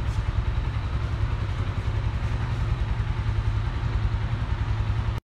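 Motorcycle engine idling steadily, a low, evenly pulsing rumble.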